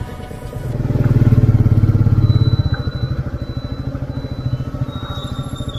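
Royal Enfield Meteor 350 single-cylinder engine running with an even exhaust beat. It swells loud about a second in, then settles to a quieter, steady run.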